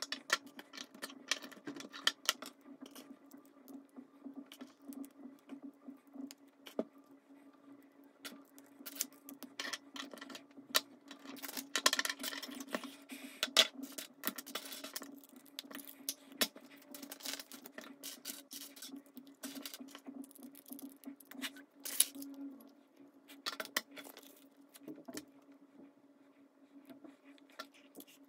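Plastic Lego bricks clicking and rattling as pieces are handled, sorted and pressed together: irregular small clicks and clatters, busiest about twelve to fourteen seconds in, over a steady low hum.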